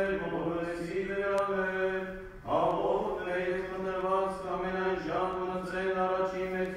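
A man chanting Armenian liturgical text in phrases on a nearly steady reciting pitch, with a short break about two and a half seconds in.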